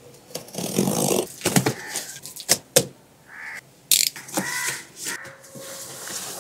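Box cutter slitting packing tape on a cardboard carton, then the flaps being pulled open: scraping and rustling of cardboard, several sharp clicks, and a couple of short squeaks a little past the middle.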